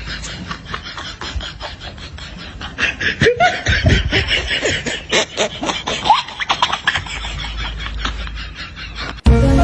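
Laughter in quick repeated bursts, loudest in the middle.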